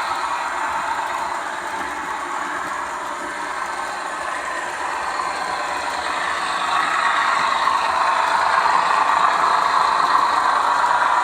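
Model railway train running along the track, a steady mechanical running sound that grows louder about six seconds in as the train comes nearer.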